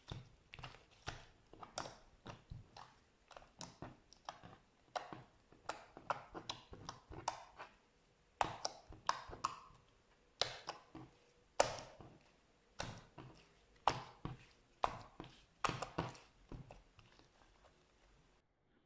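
Slime being squeezed and pressed by hand, giving a run of sticky clicks and pops about two or three a second, with louder pops roughly once a second in the second half. The sound stops just before the end.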